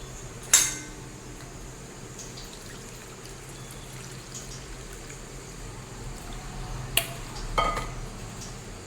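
Coconut milk dripping and trickling through a sieve into a bowl as the soaked grated coconut is strained. A sharp knock comes about half a second in, and two more come around seven seconds in.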